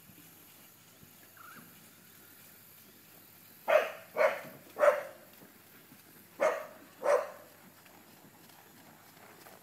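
A dog barking five times: three quick barks about four seconds in, then two more a couple of seconds later.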